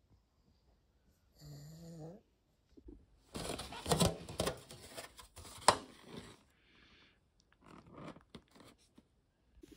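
A pug gives a short wavering grunt about a second and a half in. Then a clear plastic takeaway container crackles and clicks loudly as it is handled, with quieter crinkling near the end.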